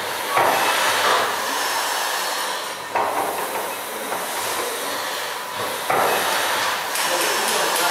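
Steam hissing in the Worth Mackenzie triple expansion steam engine, with a sudden surge about every three seconds.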